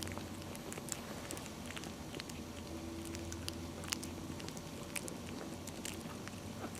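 Two-week-old puppies moving about and mouthing, making scattered small sharp clicks and ticks at irregular intervals over a steady low hum.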